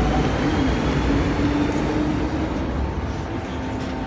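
MTR M-Train electric multiple unit heard from inside the car as it slows to a stop at a station: a low running rumble and a steady motor tone fade out about two and a half to three seconds in, leaving a quieter hum.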